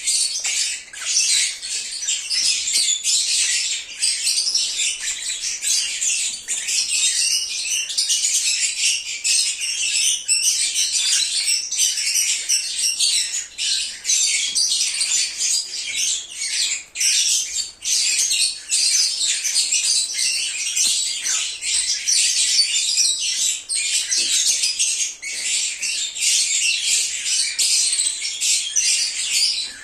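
A flock of lovebirds chirping and squawking, a dense, continuous high-pitched chatter of many birds at once.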